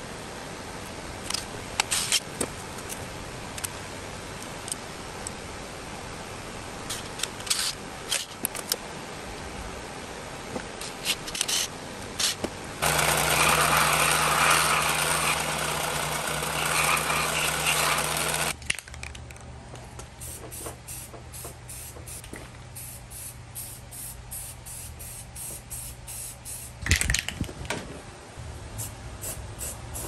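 Benchtop belt sander running for about five seconds, starting a little under halfway through, as a small mounting plate is shaped against the belt. Before and after it come quieter handling noises with scattered clicks and taps.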